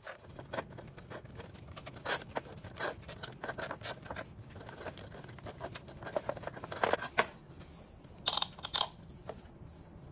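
Rubber inner tube and tyre being pushed and worked into an electric scooter's wheel rim by hand: irregular rubbing, scraping and light knocks of rubber against the metal rim, with louder scrapes about seven and eight and a half seconds in.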